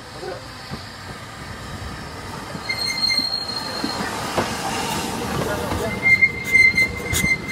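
Ffestiniog Railway Double Fairlie narrow-gauge steam locomotive 'David Lloyd George' running past with its train, the rumble of its wheels growing louder as it nears. A high-pitched wheel squeal comes in briefly about three seconds in and again for the last second and a half, with a few sharp clicks near the end.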